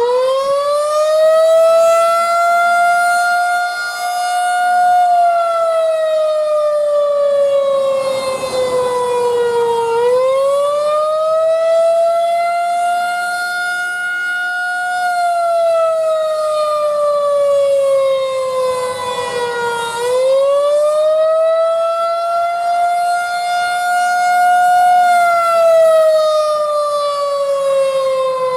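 Federal Signal 2001-130 electromechanical outdoor warning siren sounding a wail in a test. Its pitch rises over a couple of seconds, holds briefly, then slowly falls, and this repeats about every ten seconds, three times.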